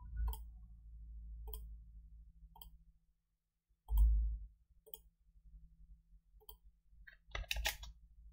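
Computer mouse clicks, single and sharp, about one a second, with a loud low thump about four seconds in. Near the end comes a quick run of keyboard key presses.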